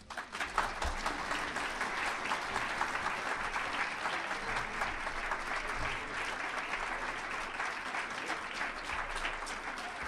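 Audience applauding: dense, steady clapping that starts abruptly and eases slightly near the end.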